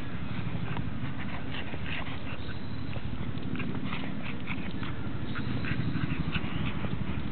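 Footsteps crunching through dry fallen leaves, with the sharp crackles coming irregularly, and a French bulldog's breathing close by.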